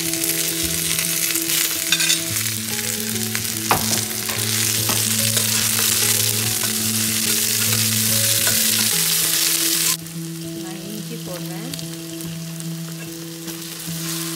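Sliced onions sizzling in hot oil in a stainless steel stockpot, stirred with a metal spoon that scrapes and clicks against the pot. About ten seconds in the sizzle drops suddenly to a quieter level.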